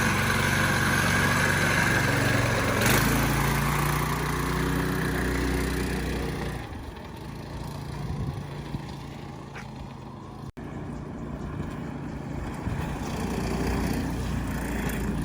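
An engine running steadily, dropping off to a lower level about six and a half seconds in.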